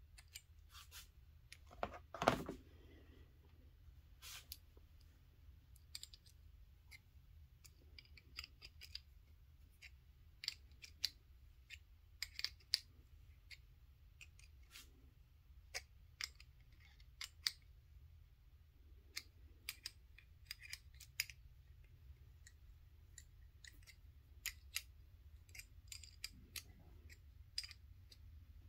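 Scattered small metal clicks and ticks of miniature hydraulic hose fittings and a small open-end wrench being handled and tightened, with one louder knock about two seconds in.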